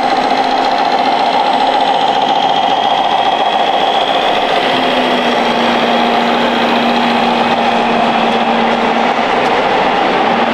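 Simulated diesel truck engine running steadily, played through the small speaker of a radio-controlled scale truck's sound module; the engine note dips slightly about halfway through, over the general hall noise.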